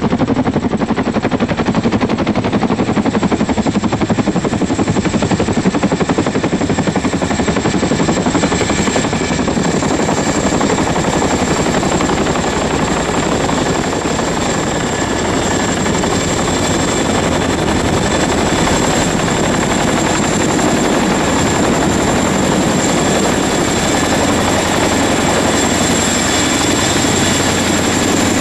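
Steady whirring of a hovering rotorcraft's rotor and motor, with a thin, high, steady whine above it.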